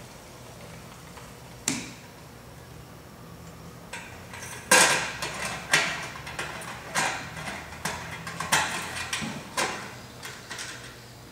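Handling noises from refuelling a small Honda gasoline engine: a single click about two seconds in, then from about four seconds a run of sharp knocks and clatters from the fuel cap and the gas can.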